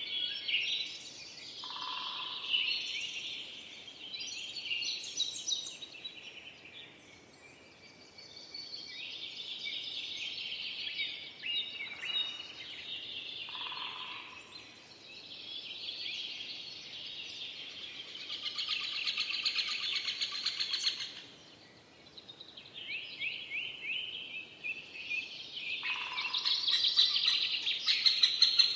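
Several songbirds singing in a forest, with overlapping phrases and rapid trills that come in bouts, pausing briefly twice.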